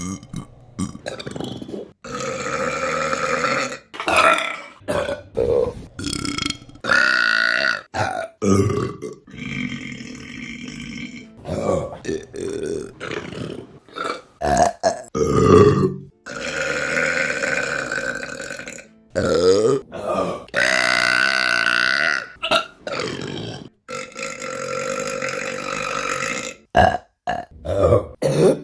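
Women burping, one burp after another: some long drawn-out belches lasting a couple of seconds, others short, with abrupt cuts between them.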